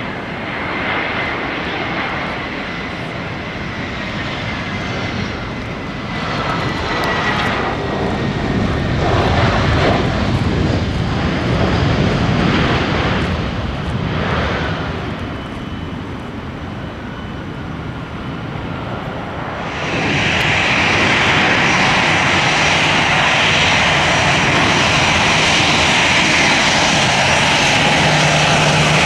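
Jet airliner engines on a landing approach: a whine slowly falling in pitch over a rush of engine noise that swells and fades. About twenty seconds in, the sound jumps abruptly to a louder, steady jet rush.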